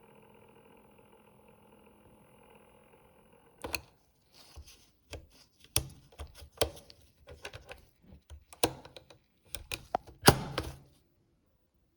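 ITT Schaub-Lorenz SL56 cassette recorder: a faint steady hum from the running mechanism, then a string of irregular clicks and clunks from its keys and cassette mechanism being worked, several of them loud. No playback is heard, in line with the fault of the cassette turning but giving no sound.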